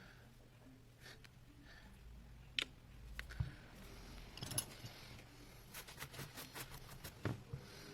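Faint scattered clicks and light handling noises, with a quicker run of clicks in the second half.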